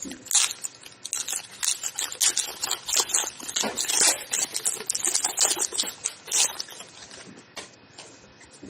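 Foil trading-card pack wrapper being torn open and crinkled in the hands, a dense run of crackling that dies away over the last few seconds.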